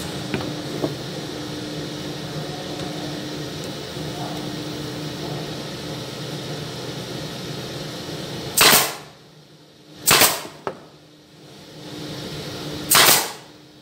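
Pneumatic brad nailer firing three times, about a second and a half and then three seconds apart. Each shot is a sharp bang with a short hiss of air as it drives a brad into the thin wooden slats.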